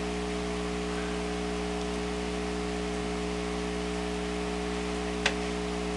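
Steady electrical hum with hiss, recording background noise, with a single sharp click about five seconds in.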